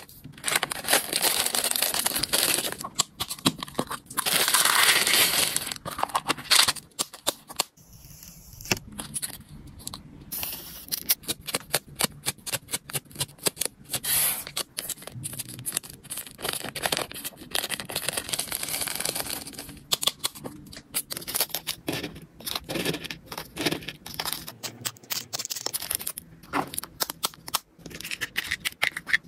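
Close-up packing handling sounds: a small thermal label printer running briefly and feeding out a label, then paper labels being peeled and torn, with light crinkling and many sharp clicks of plastic container lids.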